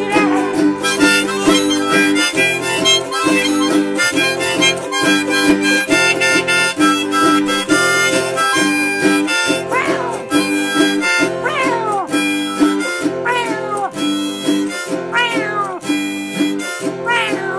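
Autoharp strummed in a steady rhythm under a harmonica played in a neck rack, an instrumental break. Several harmonica notes swoop up and down, like a meow.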